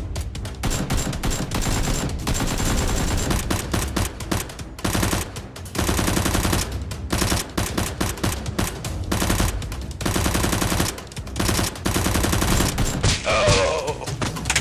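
Automatic gunfire in long rapid bursts with short breaks between them, in the style of action-video gun sound effects. A short falling tone cuts in near the end.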